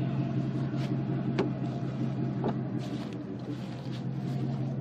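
Pickup truck engine idling with a steady low hum, with a few light clicks about a second, a second and a half and two and a half seconds in.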